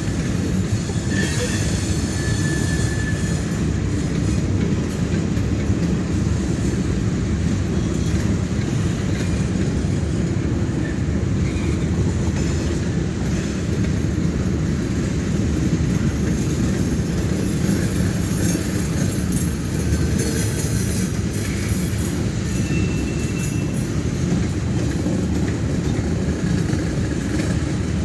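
Train cars rolling past on the rails: a steady rumble of wheels, with brief wheel squeals near the start and again later.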